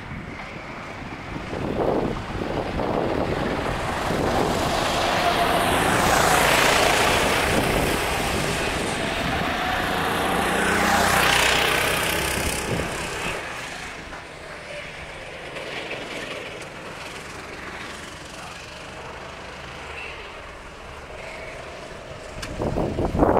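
Sodi RT8 rental karts' four-stroke engines passing on a wet track, the sound building to a peak about six seconds in and again about eleven seconds in, with a hiss of tyres on wet asphalt. It then falls to a distant drone of karts elsewhere on the circuit, and swells again at the very end as another kart approaches.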